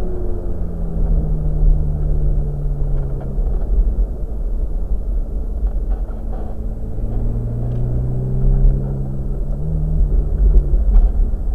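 Ferrari F430 Spider's V8 engine running on the road, its note falling as the car eases off for the first few seconds, then rising again as it pulls away from about seven seconds in. Heard from inside the open-top cabin, with a heavy low rumble of wind and road under it.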